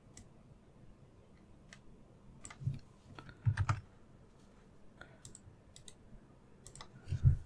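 Scattered clicks of a computer mouse and keyboard, a dozen or so spread irregularly, with a few dull knocks among them, the loudest a little past the middle.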